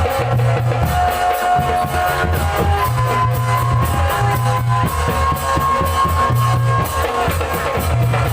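Loud Barongan accompaniment music: a steady drum beat with repeating bass pulses under long held melody notes.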